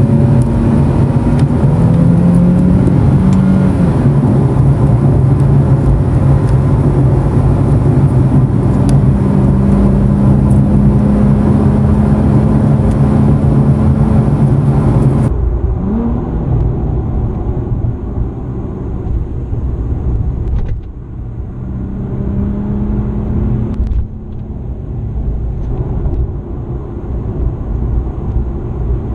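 Nissan 370Z's V6 engine and road noise heard inside the cabin while cruising, the engine drone holding steady with a brief rise and drop in pitch a couple of seconds in. About halfway through the sound turns abruptly duller, with a short rise in engine pitch just after.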